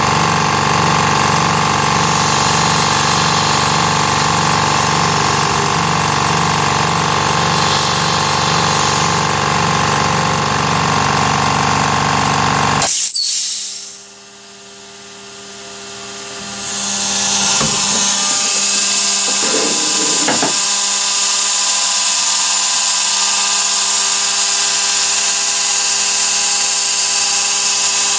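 Carvera Air CNC mill running its spindle and cutter, a steady whine with a faint repeating pulse, after the cutter has milled down into the waste board; it cuts off abruptly about halfway through when the machine is emergency-stopped. A few seconds later a steady hiss rises back up to full level.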